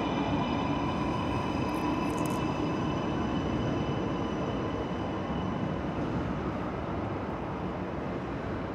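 Steady rumble of a large railway station, with a high whine of several tones from an electric commuter train fading away over the first two or three seconds.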